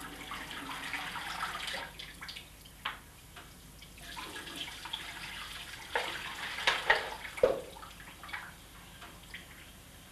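Water running from a bathroom sink tap into the basin, with a few loud splashes about six to seven seconds in as water is poured from a plastic cup over a head into the sink.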